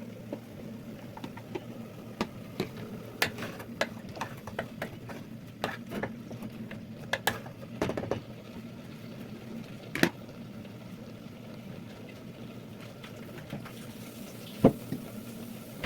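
A spoon stirring and scraping in a pan of ground beef with tomato and sweet pepper as it cooks, with scattered clinks of the spoon against the pan; the sharpest comes about ten seconds in.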